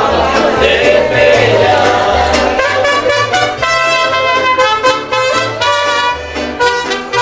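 Music with a steady bass beat: singing in the first part, giving way about three seconds in to a brass section with trumpets playing the melody.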